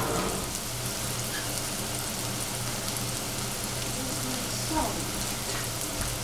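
Shiitake mushrooms sizzling in hot oil in a pan, a steady crackling hiss.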